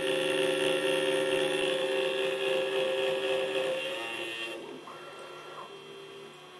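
800 W spindle of a mini CNC router running with an end mill in an aluminium workpiece held on the rotary fourth axis: a steady whine with several held tones. It drops away about four seconds in, leaving a quieter machine hum.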